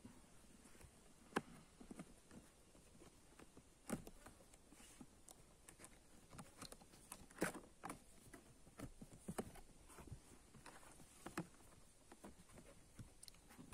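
Faint handling of a cardboard box as it is set down and its flaps are opened: scattered light taps, scrapes and rustles of cardboard, with a few sharper knocks.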